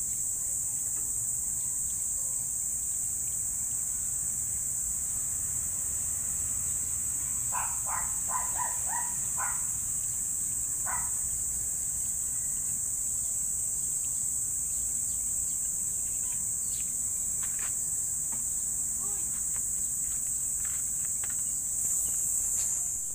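Steady, high-pitched drone of insects such as crickets, unbroken throughout. A short run of quick chirps sounds about eight seconds in, with a few faint clicks later on.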